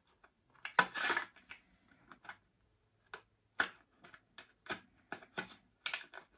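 Small black cardboard box being handled and worked open by hand: a scrape of card sliding on card about a second in, then scattered light clicks and taps.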